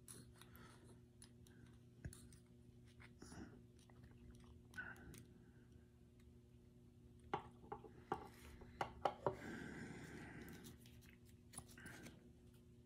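Faint clicks and light scraping of small steel pistol parts being handled as the firing pin and its spring are fitted into the slide, with a quick run of clicks about seven to nine seconds in and a brief scrape just after.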